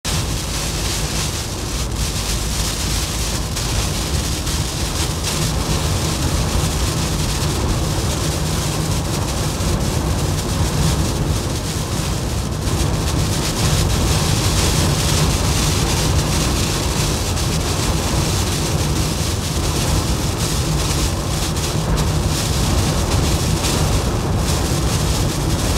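Wind and heavy rain of a hurricane's back eyewall lashing a moving vehicle, heard from inside: a loud, steady rush of rain and wind over a deep rumble.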